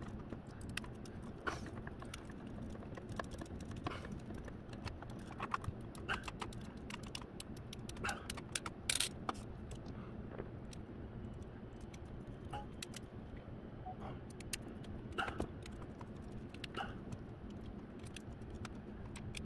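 Scattered light clicks and taps of 3D-printed plastic parts, a hobby servo and small screws being handled and fitted together, with a small screwdriver turning a screw near the end, over a low steady hum.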